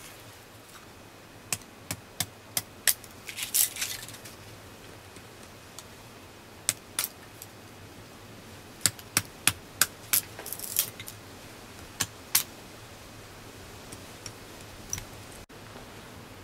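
Small dry twigs snapped by hand, a series of sharp cracks in small groups, with rustling of sticks and dry leaves in between as kindling is laid.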